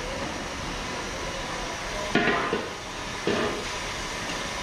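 A metal skimmer scraping and knocking against a large steel cooking pot, with two sharp clanks about two seconds in and again a second later. A steady sizzling hiss from the steaming pot runs underneath.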